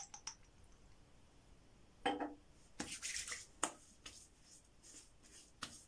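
Hands slapping and rubbing aftershave lotion onto a freshly shaved face and neck. A sharp click comes at the start, then several slaps and a stretch of rubbing from about two seconds in.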